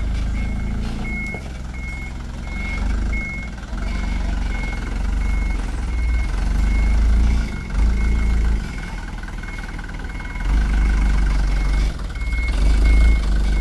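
Reversing beeper of a small truck loaded with sand: one high beep repeating about every two-thirds of a second. Under it the truck's engine rumbles, rising and falling in surges as it backs over soft dirt.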